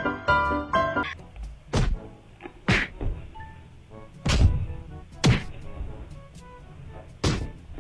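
Piano music ending about a second in, then about five sharp whack sound effects at uneven intervals, each a short punchy hit with a low thud. They sit over the faint sound of the cat clip and are comedy effects for the cats' swats.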